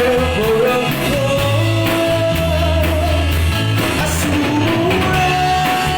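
Rock band playing: a lead vocal holding long sung notes over electric guitar, bass guitar and drums.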